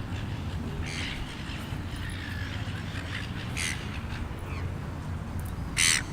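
A bird calls three times with short, harsh caws about a second in, near the middle, and loudest near the end, over a steady low rumble.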